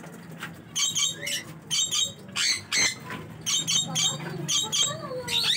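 Small caged parrots calling: clusters of short, sharp, high-pitched chirps and squawks, several a second, with brief pauses between the clusters.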